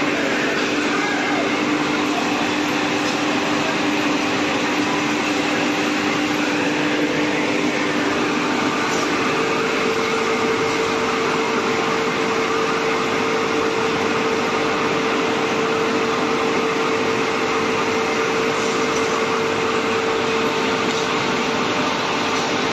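TONY 45 kW hammer mill running steadily as it crushes wood chips into sawdust: a loud, even mechanical noise with a steady hum that shifts to a higher note about nine seconds in.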